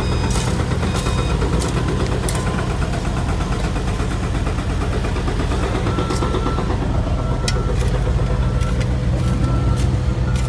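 Heavy construction vehicle engine running steadily, with a reversing alarm beeping repeatedly from about halfway through.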